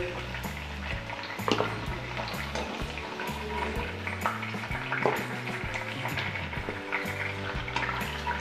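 Chicken pieces sizzling in hot oil in a stone-coated kadai as a wire-mesh skimmer lifts them out, with a few sharp clicks of the skimmer knocking against the pan.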